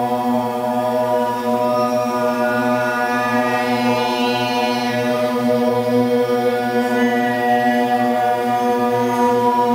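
Boys' choir singing a sustained chord, a steady drone-like chant, with the chord shifting slightly about eight seconds in.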